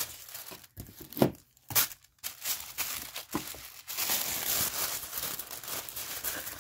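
Tissue paper rustling and crinkling as it is handled inside a cardboard box: a few sharp crackles, then steady rustling from about four seconds in.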